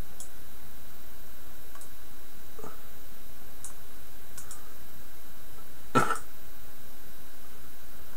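Computer mouse clicking a few times, faint and sharp, as layers are selected and dragged in editing software. About six seconds in there is one louder, brief throat noise from the person at the desk.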